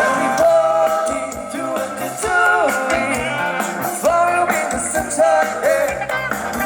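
A band playing a song with a lead singer: a sung melody with held, wavering notes over a steady bass line and drums.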